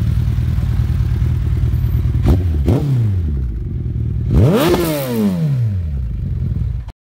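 Suzuki Hayabusa's inline-four engine idling, blipped twice in quick succession about two seconds in, then revved once harder about four and a half seconds in, each rev rising and falling back to idle. The sound cuts off suddenly near the end.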